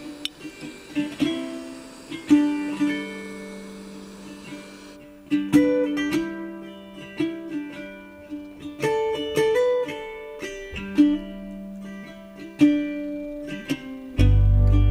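Background music: a plucked acoustic string instrument picking a melody, its notes ringing and fading one after another. Near the end a loud, low steady rumble comes in.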